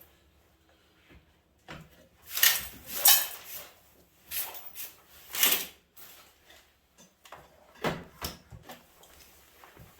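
Scraping, rustling and knocking from a heavy microwave oven transformer being handled and set back on a scale, in several loud bursts from about two seconds in, the last near the end.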